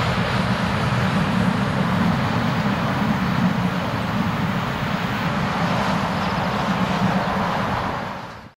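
BLS regional train, an Re 420 electric locomotive with its coaches, running past with a steady rumble of wheels on rail. The sound fades away to silence near the end.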